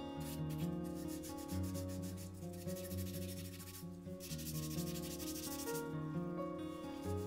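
Sanding sponge rubbing over soaked, soft-fired porcelain doll parts in repeated scrubbing strokes, wet sanding to smooth the surface, with one longer stroke past the middle. Soft background music plays underneath.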